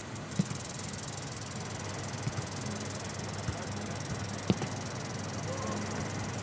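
Footballs being kicked now and then on a training pitch: a few short, sharp thuds, the loudest about four and a half seconds in, over a steady background hiss.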